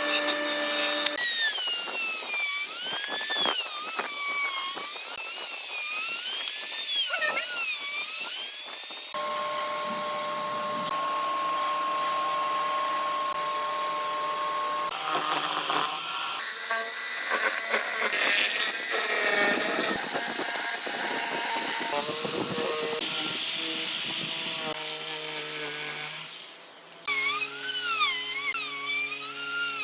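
Power tools working wood, likely drilling, in several short edited clips over background music with held tones.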